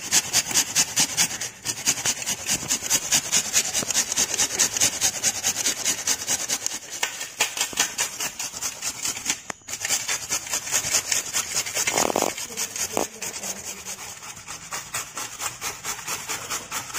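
Raw green mango and then carrot being grated on a stainless-steel grater: quick, regular rasping strokes of the produce across the metal teeth, with a short break near the middle.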